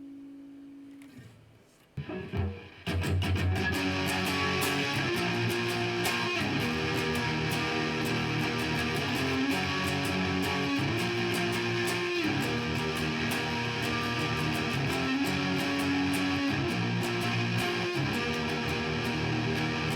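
Electric guitar played into a USB condenser microphone, unprocessed. A held note fades out over the first second or so, there are a few plucks about two seconds in, and from about three seconds in the guitar plays continuous strummed chords that change every second or two.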